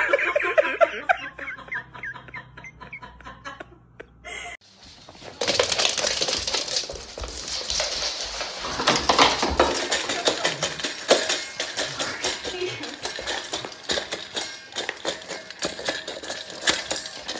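A dog working its muzzle in a stainless steel bowl, a dense run of clinking and rattling against the metal that starts about five seconds in. A person laughs briefly at the very start.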